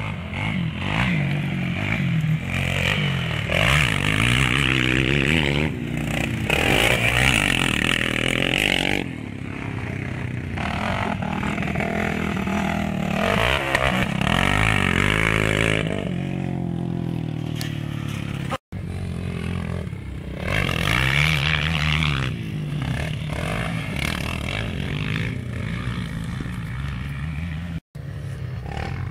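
Motocross motorcycles running on a track, their engines revving up and easing off over and over as they accelerate through the course, several bikes overlapping. The sound cuts out very briefly twice, about two-thirds in and near the end.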